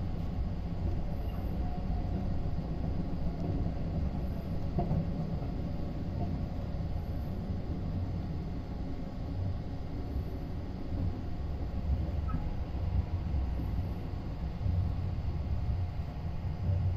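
Steady low rumble of a 285-series sleeper electric train running along the track, heard from inside the carriage.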